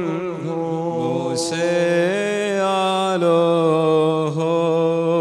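A male voice chanting a slow liturgical hymn, holding long drawn-out notes and stepping gently between pitches.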